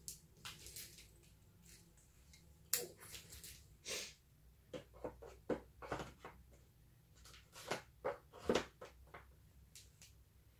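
Scattered short rustles and light plastic clicks, irregular, of hair rollers and their plastic clips being unclipped and pulled out of hair.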